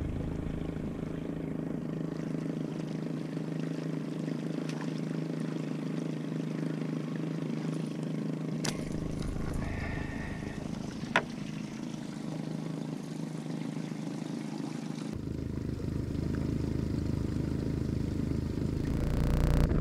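60-horsepower outboard motor running steadily at trolling speed, with a sharp click about eleven seconds in.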